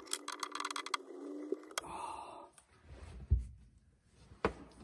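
A wrench clicking rapidly for about a second and a half as the nut is worked on a greased chainplate bolt, ending in a sharper click. Then a breathy sigh and two dull thumps.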